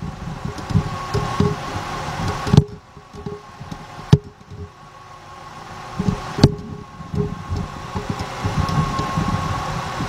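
Camera handling noise close under a vehicle: uneven low rubbing rumble with three sharp knocks, over a faint steady hum.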